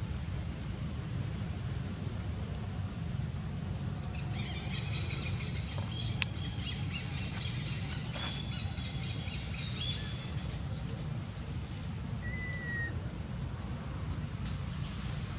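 Outdoor ambience: a steady low rumble of wind on the microphone, with a cluster of high, thin chirping calls from about four to ten seconds in and one short whistle near twelve seconds.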